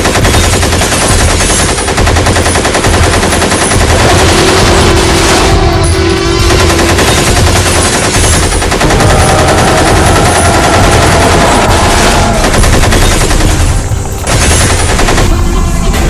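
Long bursts of rapid automatic machine-gun fire, breaking briefly about 14 s in and again just before the end.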